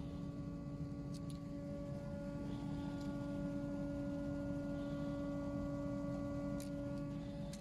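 A steady hum with a few even overtones, and a few faint clicks.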